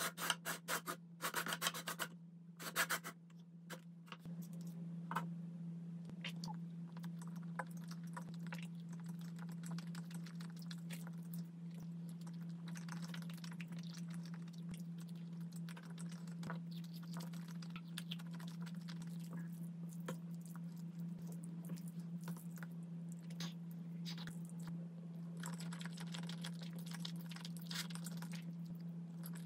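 Close-miked eating sounds: chewing, with small clicks and scratches from a wooden fork and tableware against a plate, and pasta noodles being slurped near the end. A steady low hum runs underneath, and a few louder clicks of handling come in the first couple of seconds.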